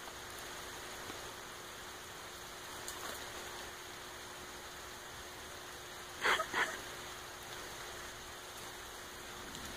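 Quiet outdoor background with a steady low hiss and a faint hum, broken about six seconds in by two short, sharp sounds in quick succession.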